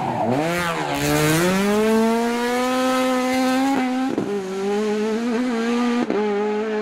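Rally car engine at high revs. The pitch dips, then climbs over the first second and holds steady, with two quick gear changes about four and six seconds in.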